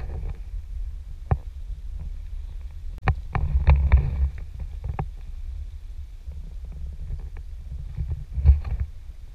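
Sea kayak being paddled: a steady low rumble of water and wind, with bursts of paddle-stroke splashing and sharp knocks of the paddle on the hull. The knocks cluster about three seconds in, and another burst comes near the end.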